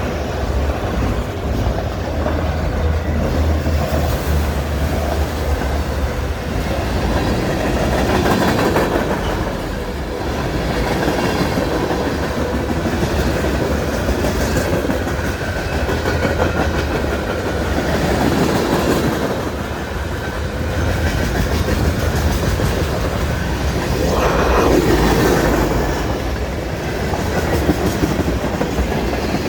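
A short train rolling past close by, its wheels clattering over the rail joints in loud, steady noise that swells and eases every few seconds. A low steady hum sits under it for the first few seconds.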